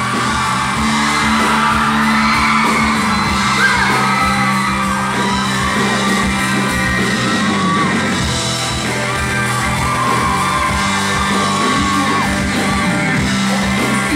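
Live band playing a pop-rock song, with a woman singing into a microphone over bass guitar, drums and a Yamaha MO keyboard.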